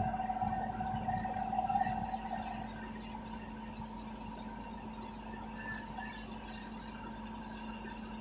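Bulldozer at work: a steady engine hum under a high squeal that stops about two and a half seconds in, after which the machine runs on more quietly.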